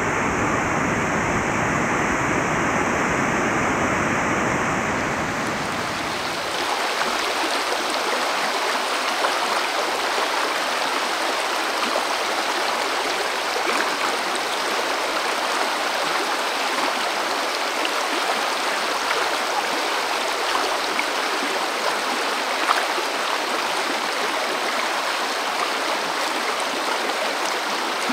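River water rushing steadily over rocks. About six seconds in it changes to a closer, brighter rush of water spilling over a rock.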